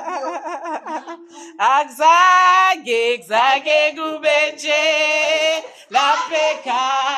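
A woman singing unaccompanied in loud, long held notes with short breaks between phrases, after a wavering vocal trill in the first second.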